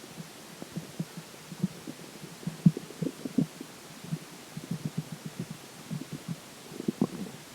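Human stomach gurgling, a run of irregular soft pops and bubbling gurgles a few times a second, with water in the stomach.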